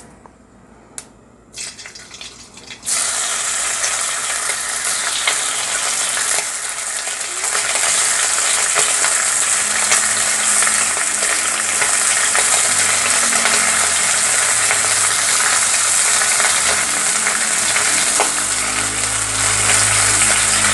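Raw pork belly slices frying in hot sesame oil in an iron wok. The sizzle starts suddenly about three seconds in as the first slices go in, and grows louder as more slices are laid in. A few light clicks come before it.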